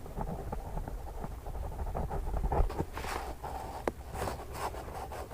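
Pen or marker scratching while writing, in a few short strokes around the middle and near the end, with one sharp click between them, over a low steady room rumble.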